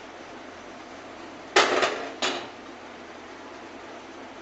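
Iron tawa clanking down onto a gas stove's metal grate: two loud metal clanks about half a second apart, the first with a short rattle, over a steady hiss.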